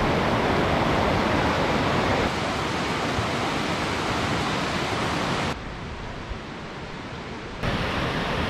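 Steady rushing of a waterfall, an even hiss of falling water. Its level changes abruptly at sudden cuts: a little quieter about two seconds in, quieter still from about five and a half seconds, and louder again near the end.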